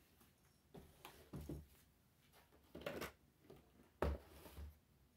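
Cardboard-and-plastic toy boxes being handled and moved: several faint rustles and knocks, the loudest a dull thud about four seconds in as a box is set down on the carpeted floor.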